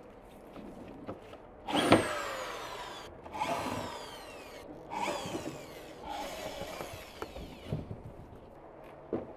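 Corded electric drill used as a screwdriver, backing the screws out of a metal chair frame's seat in four short runs, each with a falling whine. A short knock follows near the end.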